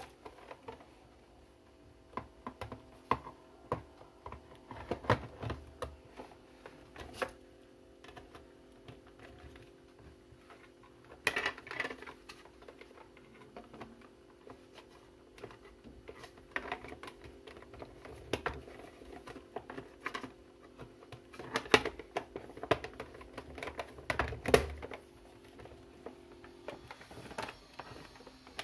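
Irregular clicks and knocks of hard plastic as a rechargeable lantern radio-cassette is handled: its battery connector being plugged in and its battery compartment cover fitted and pressed shut. A faint steady hum runs underneath.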